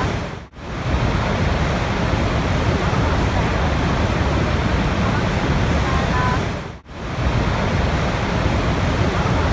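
Steady rushing water. It fades out to near silence and straight back in twice, about six seconds apart.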